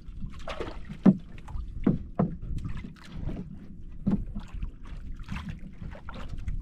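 Small waves slapping and lapping against the hull of a small boat over a steady low wash of water, with several sudden hollow slaps about one and two seconds in and again around four seconds.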